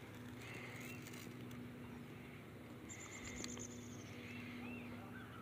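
Faint outdoor ambience: distant birds chirping in short arched notes near the start and again near the end, with a high insect buzz lasting about a second in the middle.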